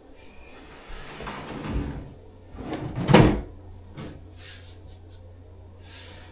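Two short scraping, sliding sounds of something moved over a hard floor, the second louder, over a low steady hum.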